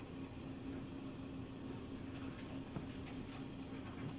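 Faint, steady kitchen background with a constant low hum and the soft bubbling of a sugar-syrup candy mixture at a rolling boil in a saucepan.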